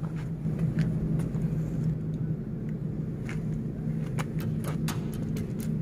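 A steady low engine-like hum runs throughout, with scattered light clicks and taps over it.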